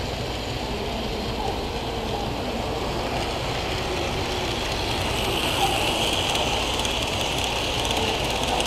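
Model train running on the layout track: a steady whir and rattle of small wheels and motor that grows louder from about five seconds in as a freight train comes around close by, with light clicking over the rails.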